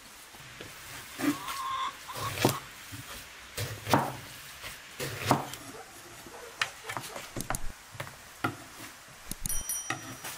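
Kitchen knife slicing through eggplant and knocking on a wooden cutting board: irregular sharp knocks, several strokes spaced unevenly.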